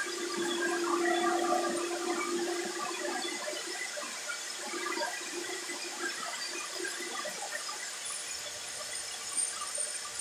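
Soap extruder running: its electric motor and screw work soap through the barrel with a steady churning noise. A humming tone sounds over the first few seconds, then fades.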